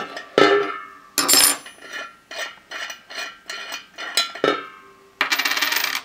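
Metal-on-metal clinks and ticks from a wrench working the nut off the shaft under a powder-coated steel saucer wheel. The saucer rings briefly after the two loudest hits, the second about a second in, and lighter ticks follow. Near the end there is a dense, fast metallic rattle lasting under a second.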